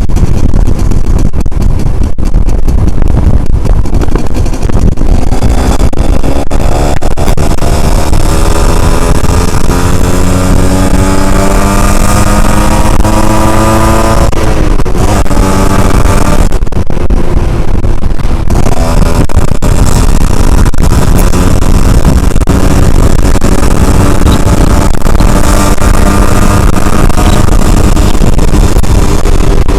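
Yamaha Alfa two-stroke motorcycle engine being ridden. Its pitch climbs as it accelerates, drops sharply about halfway through as it shifts gear, then climbs again. Loud wind rumble on the microphone.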